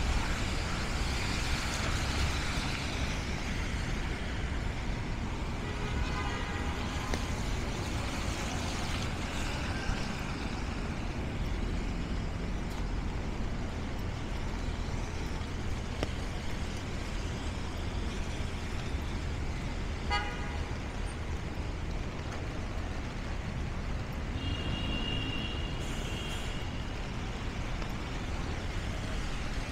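Steady city street traffic noise from cars and other vehicles on wet streets, with a few short car horn toots: one about a quarter of the way in, one about two-thirds in and one near the end.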